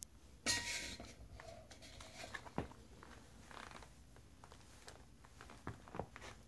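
Shell cordovan boots shifting and stepping on a wooden floor: a brief rustle about half a second in, then a few scattered soft taps.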